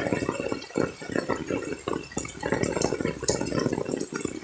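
Heavy rain falling on a tarp shelter and the waterlogged ground around it: a dense, irregular spatter of drops and splashes.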